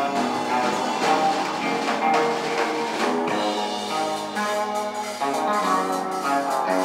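Live instrumental band: electric guitar through an amplifier playing sustained melodic notes over a drum kit with cymbals, in a jazzy style.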